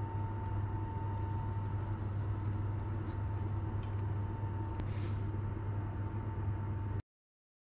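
Steady low hum with a thin high whine over it, running evenly, with a few faint ticks and a light clink about five seconds in as the metal spoon is set on the plate. It cuts off abruptly about seven seconds in.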